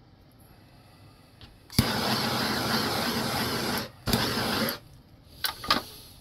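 Handheld torch clicked alight and hissing for about two seconds, then lit again for a shorter burst, shrinking heat-shrink tubing; a few light clicks near the end.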